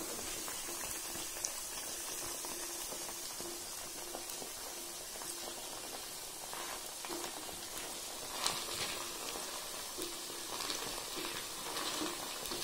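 Potato sticks frying in hot rice bran oil in a pan: a steady sizzle with scattered crackles, more of them in the second half.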